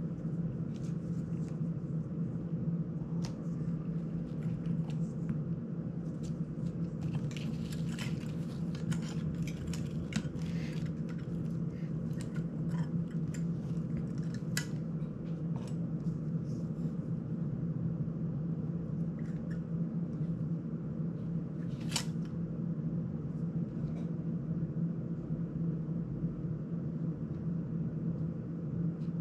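Small clicks, taps and rattles of plastic drone frame parts, prop ducts and screws being handled, the sharpest click about two-thirds of the way in, over a steady low hum of a running desk fan.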